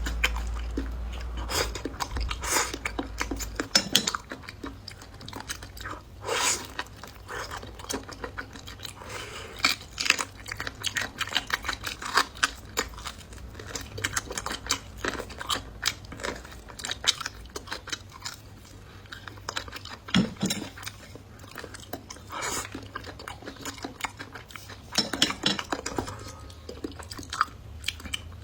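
Close-up eating sounds: a person chewing food, with many short irregular clicks of utensils against dishes.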